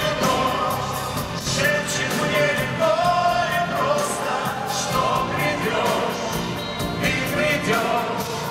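Male vocal group singing live over a band, the voices held on sustained notes and amplified through the arena's PA.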